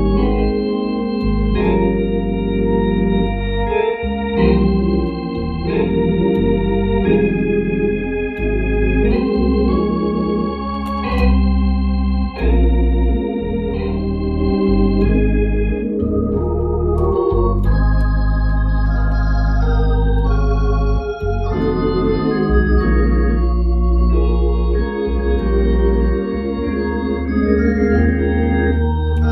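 Hammond-type drawbar organ playing slow gospel chords. Sustained chords change every second or two over deep held bass notes.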